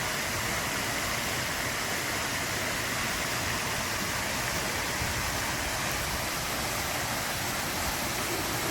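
Running water rushing steadily, an even, unbroken sound without drops or splashes standing out.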